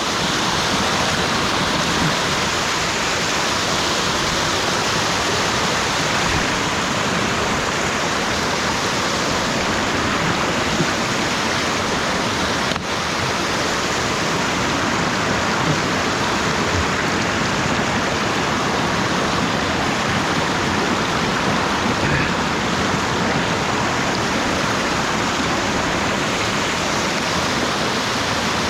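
Rushing water of a creek running over rocks at a small waterfall, a steady, loud roar of water.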